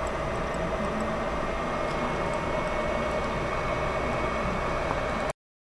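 Steady background hiss and hum, even throughout, that cuts off abruptly to dead silence about five seconds in, like an edit in the recording.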